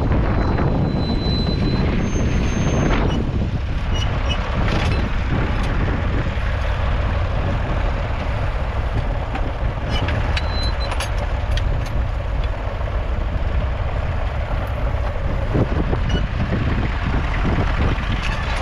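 Massey Ferguson 35X's 2.5-litre three-cylinder diesel engine running steadily.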